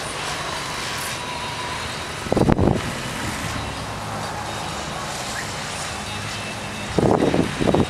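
Wind buffeting the microphone in two gusts, one about two seconds in and a longer one near the end, over a steady outdoor background rumble.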